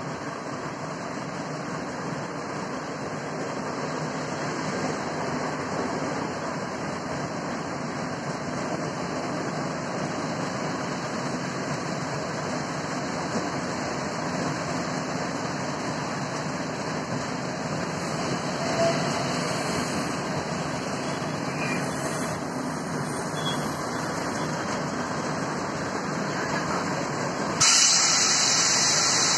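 Renfe electric passenger train pulling into the station: a steady rumble that grows slowly louder as it approaches, then a sudden loud hiss near the end as it draws alongside.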